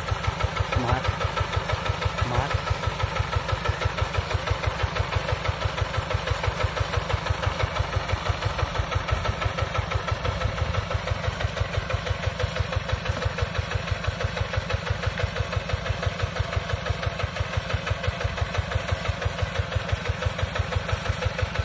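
Single-cylinder diesel engine of a converted hand tiller, powering a homemade rice harvester, running steadily with an even, regular beat.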